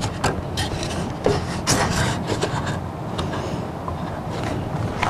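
Irregular wooden knocks and clatter as timber noggins are set and fixed between the studs of a timber wall frame, with a steady low hum underneath.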